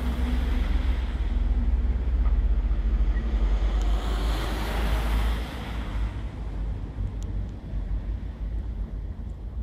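A vehicle passing close by: a low rumble and rushing noise that swell to a peak about halfway through, then fade. Wind buffets the microphone.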